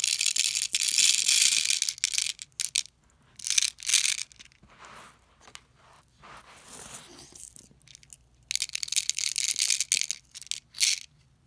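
Plastic airsoft BBs rattling as they are poured by hand into the clear plastic reservoir of a speed loader. The rattling comes in three bursts: for about the first three seconds, briefly around four seconds in, and again from about eight and a half seconds to nearly eleven. Softer sounds in between come from loose BBs being scooped up off the carpet.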